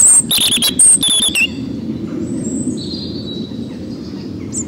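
American robin singing in short whistled, warbling phrases. The phrases are loud in the first second and a half, fainter around the middle, and loud again near the end, over a steady low background hum.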